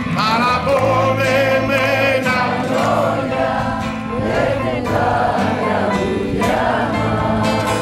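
Live song: voices singing long, drawn-out notes in a few phrases over a steady guitar accompaniment.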